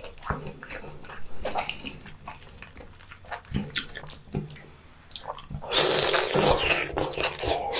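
Close-miked wet eating sounds of boiled octopus in sauce: scattered sticky smacks and clicks, then a louder, longer wet slurp and chew about six seconds in as a tentacle is bitten into.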